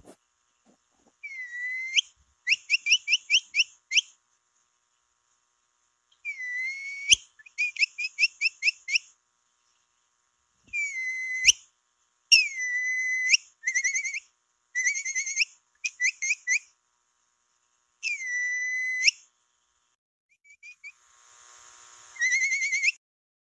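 Capybara calls used as a lure: high whistles repeated in phrases, each a held note that breaks into a quick run of short chirps, about four a second. Near the end one call starts raspy and rises into a whistle.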